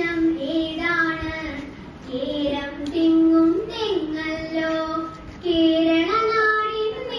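A girl singing solo into a microphone in long held notes that step up and down in pitch: a snatch of an Ottamthullal song.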